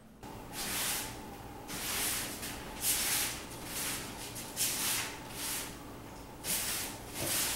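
Broom sweeping debris across an OSB subfloor, with a brushing stroke about once a second.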